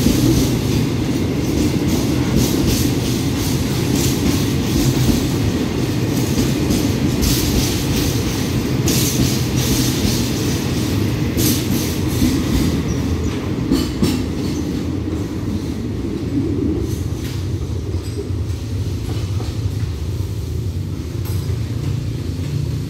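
Freight train of tank wagons rolling past: a steady rumble of wheels on rail, with rattles and sharp clanks from the wagons. The clanks thin out in the last few seconds as the brake van passes and the train moves away.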